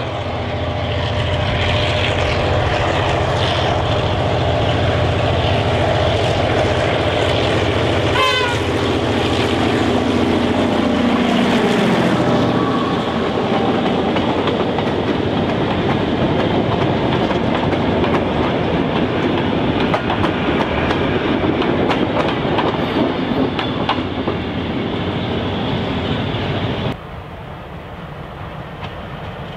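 Clyde-built EMD G6B diesel-electric locomotive with a 567C engine approaching and passing close, its engine note falling in pitch as it goes by. Loaded wagons then roll past with a clickety-clack of wheels over the rail joints. About 27 s in, the sound cuts suddenly to the train further off and quieter.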